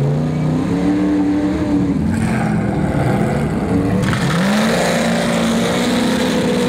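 Off-road race vehicles' engines revving hard as they accelerate away. The pitch climbs and falls in the first two seconds, then after an abrupt change about four seconds in a second engine climbs and holds at high revs.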